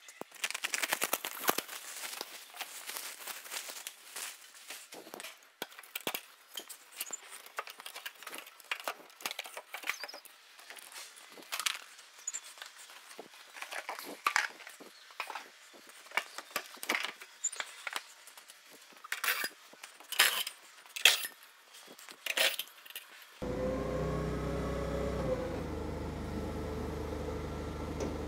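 Irregular knocks, clicks and clatter of a wooden shipping crate being taken apart by hand, the loudest knocks near the end of that stretch. About 23 seconds in, the sound cuts to the steady running of a propane-fuelled Clark forklift engine.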